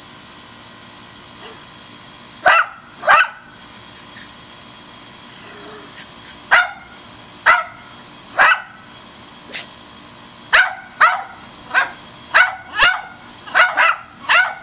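Two rat terriers barking up at a squirrel in a tree: sharp single barks, two close together, then a pause, then barks coming faster and faster toward the end.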